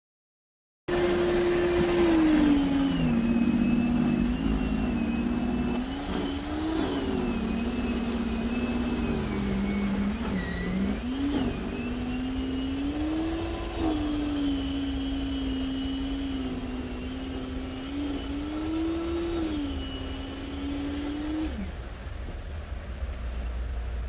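A motor vehicle's engine revving, its pitch rising and falling slowly for about twenty seconds, then dropping and cutting off near the end, which leaves wind noise on the microphone.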